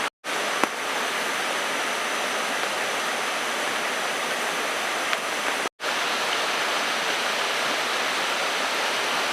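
Steady hiss of heavy rain falling. It cuts out briefly twice, once just after the start and again a little over halfway through.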